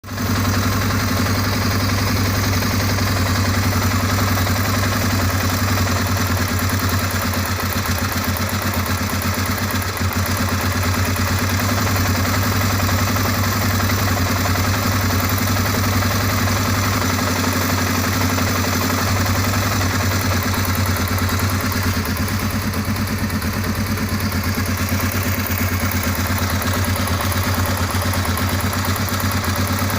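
Suzuki DR250 (Djebel 250) air-cooled single-cylinder four-stroke engine idling steadily, with a metallic knock coming from the cylinder head at low revs.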